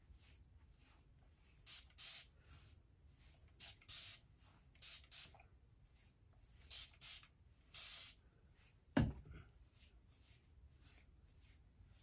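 Hand-held trigger spray bottle misting water onto a synthetic wig: a quick run of short hissing spritzes, two or three a second, some louder than others. About nine seconds in there is a single loud thump.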